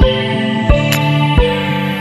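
Background music: held electronic chords with a low drum beat about every 0.7 seconds and a crisp high hit between beats.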